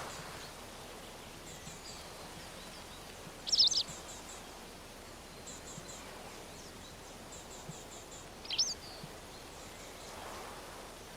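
Songbird calls over a steady outdoor ambience: two short, loud high-pitched calls about three and a half and eight and a half seconds in, with faint rows of very high chirps between them.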